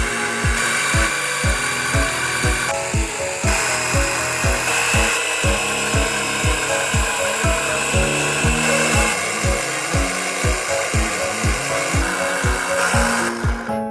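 Background music with a steady kick-drum beat, about two beats a second, over a continuous mechanical whirring noise that changes character abruptly several times.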